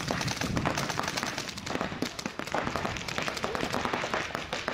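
Paintball markers firing rapid strings of shots, a fast, dense popping that runs throughout.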